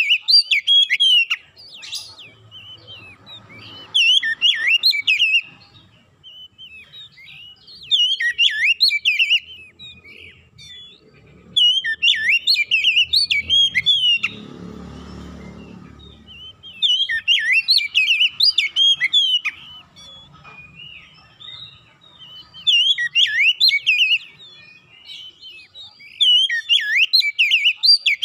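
Oriental magpie-robin (kacer) singing: loud, varied whistled phrases of about two seconds each, repeated every few seconds with short pauses between. A brief rushing noise comes about halfway through.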